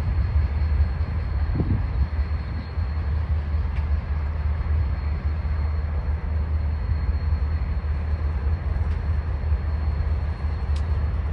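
BNSF diesel-electric locomotives' engines running, a steady low rumble, with a faint steady high-pitched whine above it.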